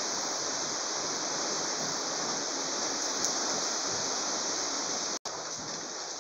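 Steady rain pouring down, an even hiss. It breaks off for an instant about five seconds in, then goes on a little quieter.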